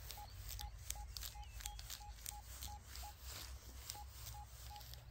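XP Deus II metal detector giving a run of short, identical mid-pitched beeps, about two to three a second, as the coil is swept back and forth over a buried metal target. The beeps stop just before the end.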